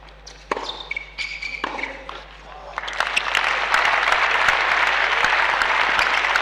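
The end of a tennis point on an indoor court: a few sharp racket-on-ball hits, then from about three seconds in the crowd breaks into loud applause for the point won.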